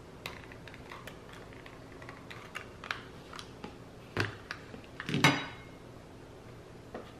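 Light clicking from a mini hot glue gun's trigger as a bead of glue is run along a frame. About four seconds in comes a knock, then a ringing clatter, the loudest sound, as the glue gun is set down on a ceramic plate.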